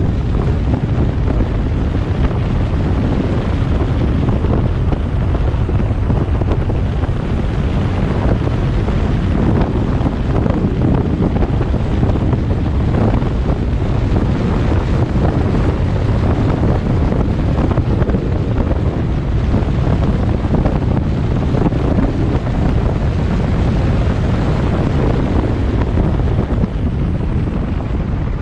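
Wind buffeting the microphone over a steady low rumble from a moving vehicle on the road.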